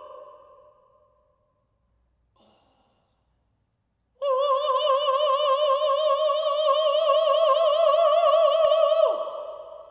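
A man singing unaccompanied: one long high note with wide vibrato, starting suddenly about four seconds in and held for about five seconds, then sliding sharply down in pitch and echoing away. Before it, the echo of the previous note dies into quiet.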